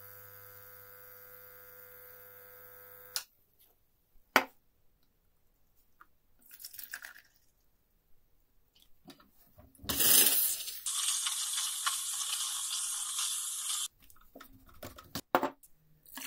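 Espresso machine pump humming steadily while a shot pours, cutting off about three seconds in. Later milk is poured into a steel pitcher, and a milk-steaming wand hisses loudly and steadily for about three seconds. Near the end there are clinks and milk splashing into a glass.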